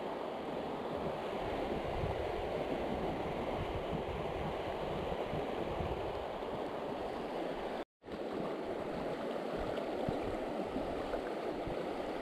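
Fast river water rushing steadily over a stony bed. The sound cuts out for an instant about eight seconds in.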